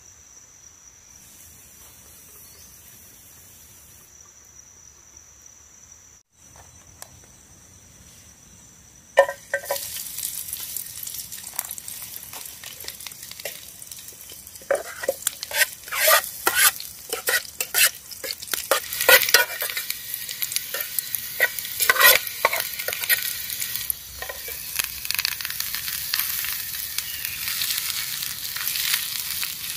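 Sliced garlic frying in oil in a small camping pot over a wood fire, sizzling loudly with a spoon clicking and scraping against the pot as it is stirred; the frying starts suddenly about nine seconds in and becomes a denser, steady hiss near the end as cassava leaves go in. Before the frying, only a steady high drone of crickets.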